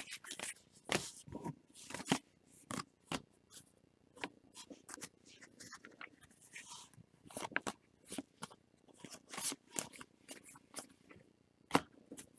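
2019 Topps Series 2 baseball cards being handled and flipped through one by one, giving a run of quick, irregular card snaps and slides.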